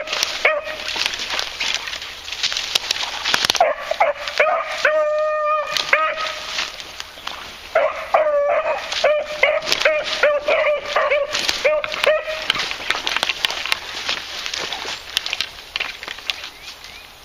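Beagles baying on scent in runs of short, repeated yelps, with one longer drawn-out bay about five seconds in. The baying stops about twelve seconds in, leaving footsteps rustling through dry leaves and brush.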